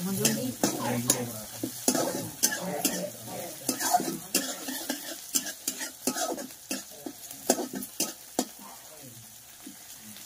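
Chopped onion, garlic and cumin sizzling in hot oil in a kadhai while a steel spoon stirs them, scraping and clinking against the pan again and again. The onions are being fried until they turn red-brown. The strokes grow fewer near the end.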